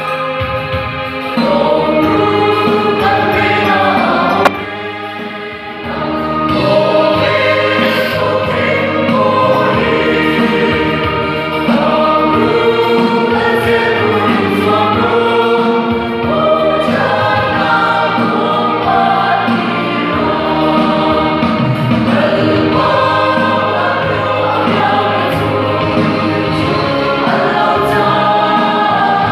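Mixed church choir singing a hymn in parts, with a brief drop in level about five seconds in before the singing swells again.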